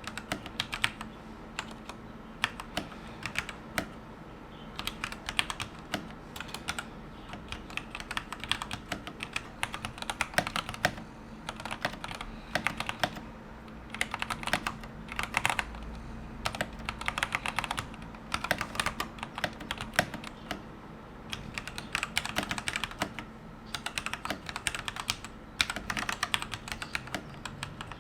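Rakk Ilis mechanical keyboard with Gateron Yellow switches and thick YMDK dye-sub PBT keycaps being typed on: fast runs of keystroke clacks in bursts, broken by short pauses.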